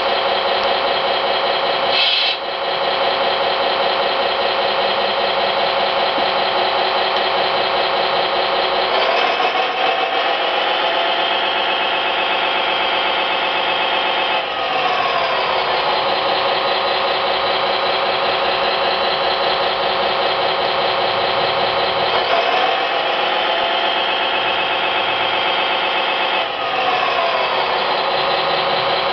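Simulated engine sound from an SMX RC sound card played through a small speaker: a steady idle that revs up and holds high twice, each time dropping back to idle after about five seconds. A brief sharp sound comes about two seconds in.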